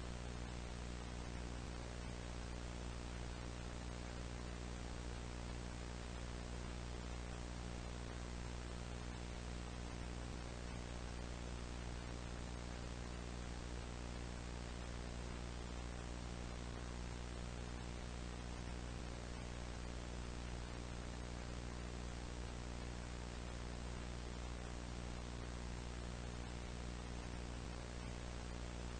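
A steady electrical hum with a stack of low overtones under an even hiss of static, unchanging throughout.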